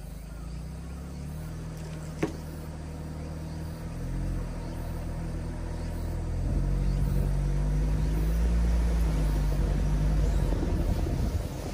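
Mitsubishi Delica D:5 clean diesel engine running as the van drives along, its low drone growing louder about halfway through as it works harder. A single sharp tick comes about two seconds in.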